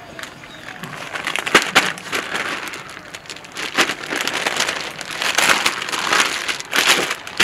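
Rustling and crinkling with several sharp knocks as balls of boiled potato dough are pressed flat under a thali plate to shape papad.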